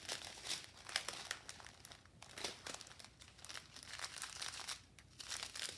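Clear plastic bags of diamond painting drills crinkling as they are handled and laid out: irregular rustles with brief lulls about two seconds in and near the end.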